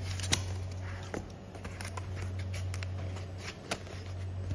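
Scattered taps and knocks of thick honeycomb paperboard being handled, its cut-out shapes pushed and the board lifted, with the sharpest knock about a third of a second in. A steady low machine hum runs underneath.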